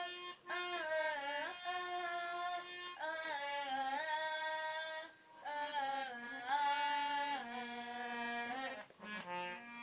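A boy singing a Hindi Krishna bhajan to his own harmonium accompaniment. The voice holds long, bending notes over the harmonium's steady held chords, with short breaks between phrases about half a second, five seconds and nine seconds in.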